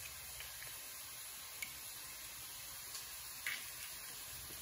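Mostly quiet room tone with two or three faint short clicks and ticks from an egg being separated by hand, the eggshell halves handled and the yolk dropped into a bowl.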